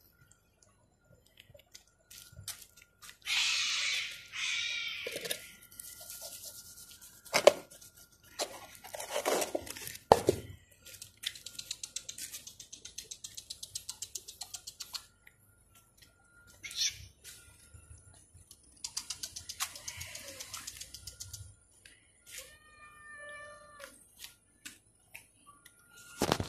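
Street cats crowding to be fed: a few meows among rustling, clicks and knocks, with a faint steady high tone behind.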